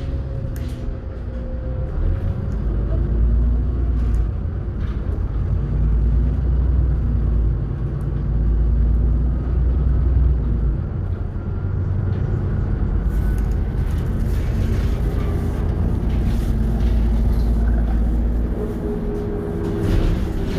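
Inside a moving bus with no passengers: a steady low engine and road rumble, with a faint whine that slides up and down in pitch and scattered clicks from the cabin.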